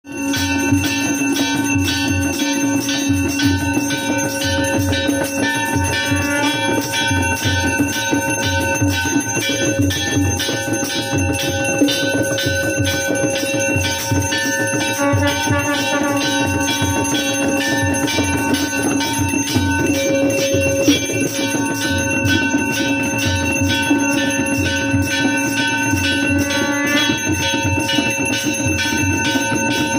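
Devotional music with bells ringing in a quick, steady beat over held tones that shift in pitch every few seconds.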